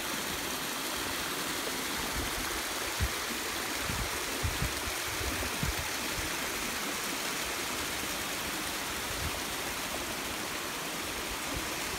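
Creek water rushing steadily over rocks and small falls. A few short low thumps come through about three to six seconds in.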